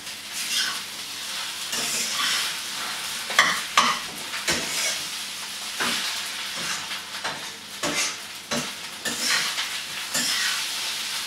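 Rice frying with a steady sizzle in a hot wok while a metal spatula stirs and turns it, scraping and knocking against the pan in quick, irregular strokes.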